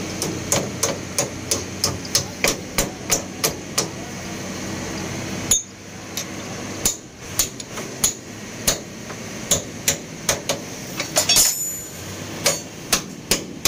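Steel hammer blows on a truck's leaf spring suspension, each a sharp metallic strike with a short ring. A run of about ten even blows at about three a second is followed by a pause, one single blow, then more irregular blows.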